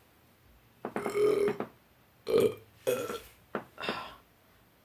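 Deliberate burps forced up from the stomach: one long belch about a second in, then a quick run of four shorter burps.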